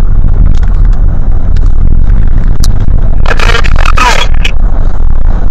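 Loud, distorted low rumble of a car in motion. A brief voice is heard about three seconds in.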